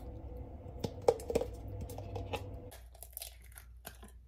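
A metal measuring cup clinks and scrapes against a bowl and a mayonnaise jar as mayonnaise is scooped, with a few sharp clicks. Then an eggshell crackles as an egg is cracked open over the bowl. A steady hum in the background stops partway through.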